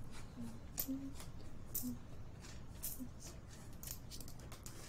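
Quiet, scattered light clicks and rustles of small objects being handled over a ticket counter, against a low room tone.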